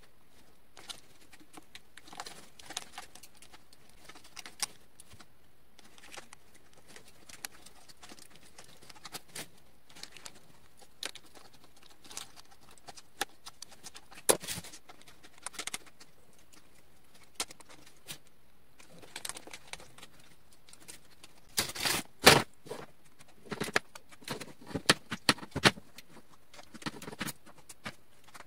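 Box cutter blade scraping and clicking as it cuts holes through the plastic lid of a Sterilite storage bin, with scattered knocks of the lid being handled. A cluster of louder clatters comes about two-thirds of the way through.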